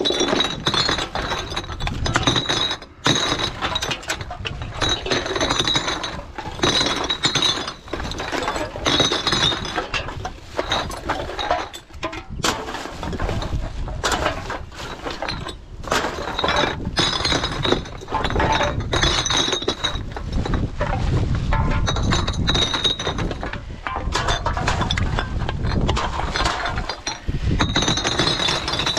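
Empty glass bottles clinking and clattering against one another as gloved hands dig through a bin packed with them: a dense, uneven run of quick glassy knocks.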